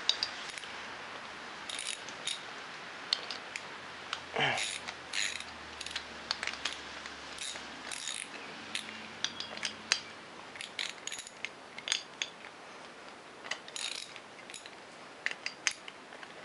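Scattered small metallic clicks and taps at uneven intervals, with one louder squeak that falls in pitch about four and a half seconds in: metal parts and tools being handled at a stopped metal lathe.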